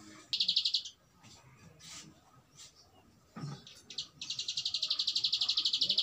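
Caged prenjak alang-alang, a prinia, singing its rapid, evenly pulsed high trill ("ngebren"). A short burst comes about a third of a second in, then a long unbroken trill starts about four seconds in.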